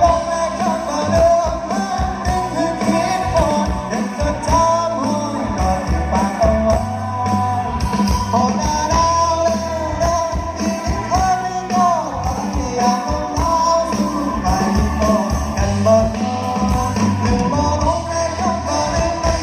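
A band playing a song with a sung melody over bass and drums.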